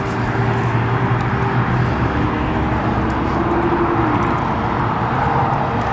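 Steady road traffic noise, a continuous hum of vehicles running on a nearby road.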